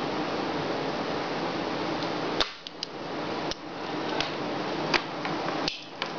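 A spring-loaded desoldering pump (solder sucker) clicking and snapping as it is cocked and fired to pull solder off the pins of a circuit board. There are about seven sharp clicks over a few seconds, with a steady hiss underneath.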